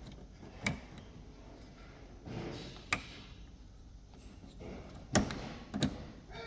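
Four sharp clicks and knocks with soft rustling between them: wire connectors being pushed onto the terminals of a washing machine's water inlet valves.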